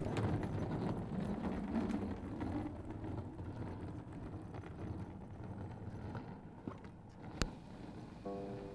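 Small wheels of a rolling suitcase rattling over a paved path, fading steadily as it moves away. A single sharp click sounds near the end, and plucked-string music comes in just at the close.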